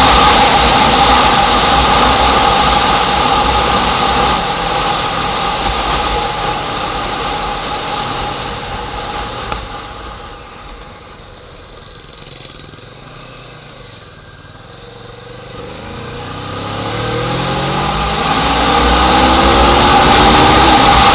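A vehicle engine running loud and steady, easing off to a quieter low around the middle, then rising in pitch as it speeds up again near the end.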